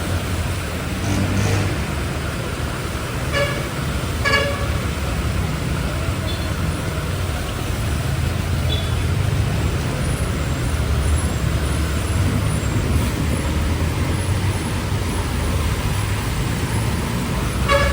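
Steady rumble of city street traffic with engines running, and a vehicle horn tooting twice in quick succession a few seconds in, then again at the very end.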